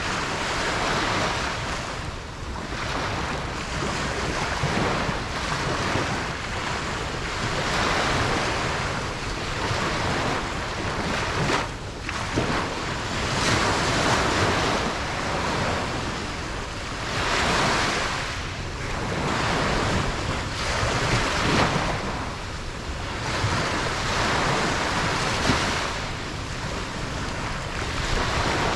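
Ocean surf breaking on a beach: a continuous wash of waves that swells and fades every few seconds.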